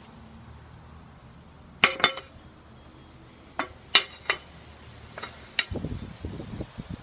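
A handful of light clinks from small bowls and utensils being handled, each with a brief ring. Low bumping handling noise follows near the end.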